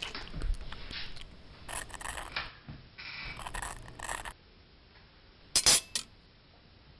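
Tableware handling at a dinner table: cutlery clicking and scraping on plates for the first four seconds, then a lull, then a sharp, loud double clink a little after five and a half seconds.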